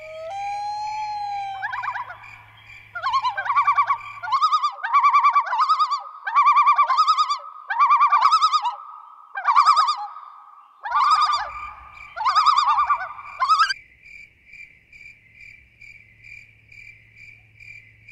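Animal calls in quick succession, a loud pulsing call repeated more than a dozen times and stopping near the end, over a steady insect trill that carries on alone.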